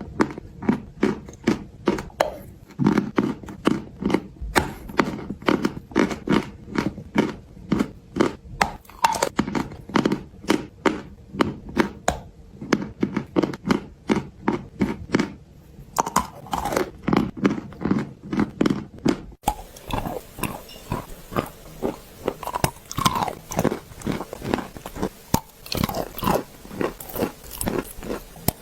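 A person biting and chewing white clay close to the microphone: a steady run of crunches, about two to three a second. About two-thirds of the way through, the crunching turns softer and less even, with more hiss behind it.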